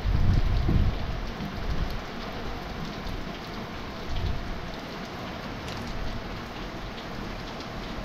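Steady rain falling, an even hiss throughout, with a loud low rumble in the first second and a weaker one about four seconds in.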